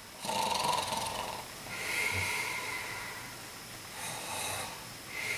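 A man doing mock snoring: about four long, rasping snoring breaths a second or so apart.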